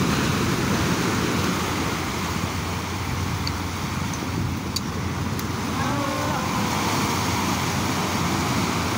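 Ocean surf breaking and washing over shoreline rocks in a steady rush, with wind buffeting the microphone. A faint voice is heard about six seconds in.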